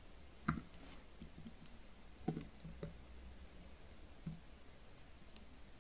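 Computer keyboard keystrokes: about eight sparse, separate clicks, typing code at a slow pace.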